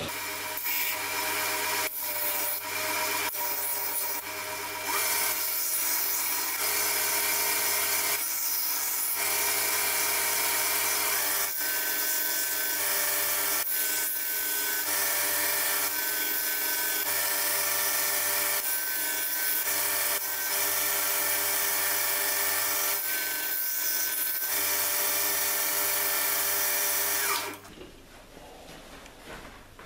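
Belt grinder with a fine 120-grit belt grinding a steel knife blank held in a sliding jig: a steady hiss of abrasive on steel over the motor's whine, with a thin high squeal coming and going through the middle. The grinding stops suddenly a couple of seconds before the end, leaving only a faint hum.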